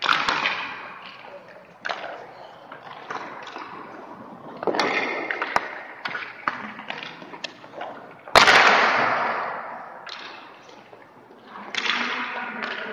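Hockey skate blades scraping and carving on rink ice in several separate strokes, with sharp clicks and knocks scattered between them. The loudest is a sudden hard scrape about eight seconds in that fades out over a second or so.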